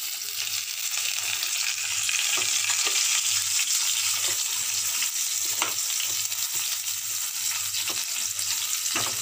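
Sliced onions and whole spices sizzling in hot oil in a steel kadai, a steady frying hiss. A metal spatula scrapes and clicks against the pan now and then as they are stirred.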